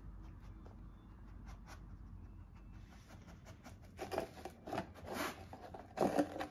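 A dog chewing on a seeded ring-shaped treat. Faint clicks come first, then a run of loud crunches starts about four seconds in.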